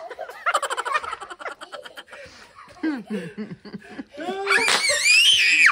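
Young children laughing in quick bursts, then a loud, high squeal that rises in pitch from about four seconds in.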